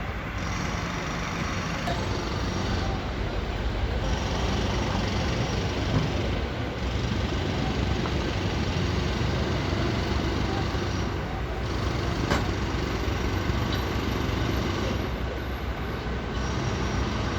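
Steady urban road-traffic noise, a dense low rumble of passing vehicles, with a single sharp click about twelve seconds in.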